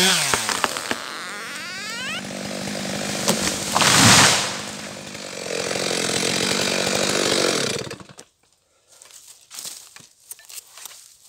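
Stihl MS 462 two-stroke chainsaw dropping from full cutting speed to idle, idling, then switched off about eight seconds in. A loud rushing crash about four seconds in, the felled beech coming down, is followed by faint twig crackles.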